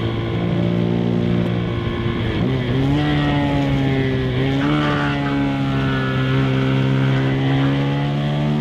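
KTM 390 SMC-R's single-cylinder engine running under way, its Stage 2 DNA filter intake sound to the fore. The pitch holds steady, dips and climbs about two seconds in and again about four and a half seconds in, then eases slowly down.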